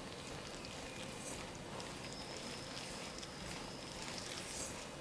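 Faint soft rustling and scraping of a hand mixing dry flour with curd and chopped herbs in a stainless steel bowl, with a few light irregular ticks.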